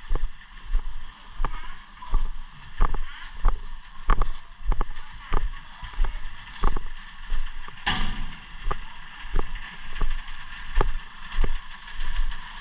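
Boots wading through deep water, one step's splash about every two-thirds of a second, with one bigger splash about eight seconds in.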